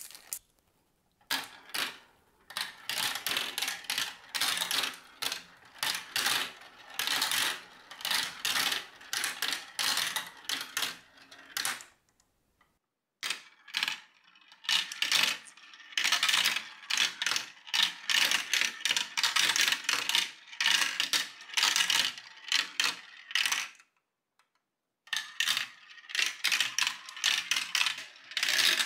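Glass marbles rolling and clicking down the plastic tubes and curved chutes of a Galt Marble Run, a rapid rattling clatter. Three runs: starting about a second in, about thirteen seconds in and about twenty-five seconds in, the first two each lasting about ten seconds and stopping abruptly.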